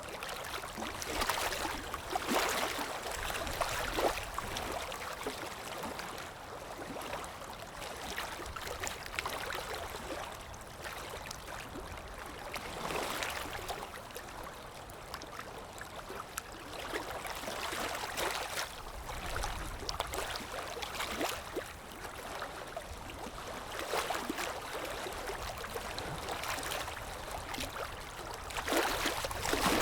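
Water flowing and gurgling, like a stream, in an unbroken rush that swells and eases every few seconds with small splashes.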